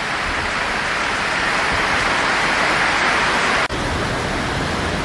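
Steady rush of water in flood footage, an even hiss with a sudden brief break about three and a half seconds in.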